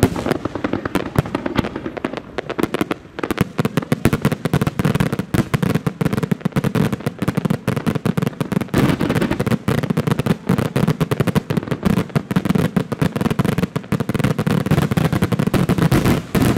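Fireworks bursting in a dense, rapid barrage: many bangs and crackles overlap with hardly a break, thinning briefly about three seconds in.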